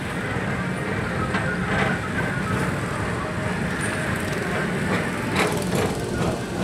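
Tomorrowland PeopleMover car running along its elevated track: a steady rumble with a few clicks and knocks, the sharpest about five seconds in.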